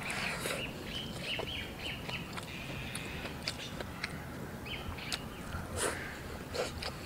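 Wooden chopsticks clicking and scraping against a ceramic rice bowl in a few short taps as rice is shoveled into the mouth, with birds chirping in the background.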